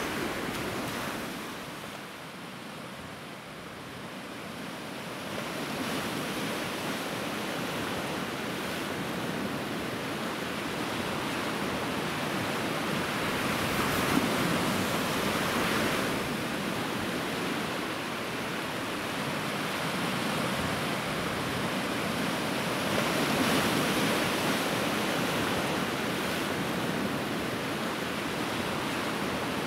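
Sea surf breaking against rocks: a steady rushing that swells and ebbs as the waves come in. It dips for a few seconds near the start, then surges louder twice later on.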